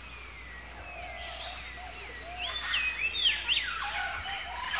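Several forest birds calling over one another. Faint falling whistles come first, then a quick run of short high chirps about a second and a half in, and louder looping whistles around three seconds in.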